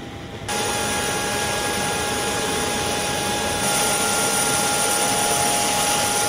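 Jet turbine noise from a C-5A Galaxy on the ground: a steady loud rush with a high whine, starting suddenly about half a second in, stepping louder a little past halfway and cutting off sharply at the end.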